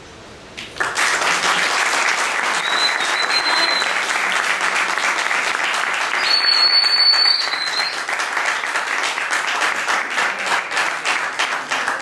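Audience applause breaking out about a second in, dense and steady, then thinning into separate claps near the end. A high steady whistle-like tone sounds briefly twice over it.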